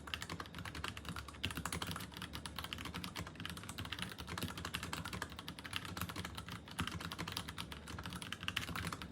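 Continuous typing on a Royal Kludge RK84 mechanical keyboard: a dense, unbroken stream of key clacks.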